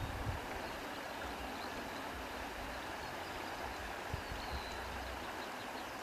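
Wind outdoors: a steady rushing, with a few brief low buffets of wind on the microphone.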